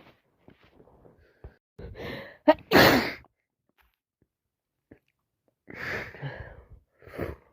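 A woman with a heavy head cold sneezing hard, a sharp loud burst about two and a half seconds in after a drawn-in breath. Smaller sniffs and breaths come before it, and more breathy bursts follow near the end.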